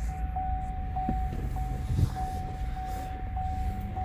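A steady, high electronic warning tone, broken by a short gap a little under twice a second, over a low background rumble, with a single knock about two seconds in.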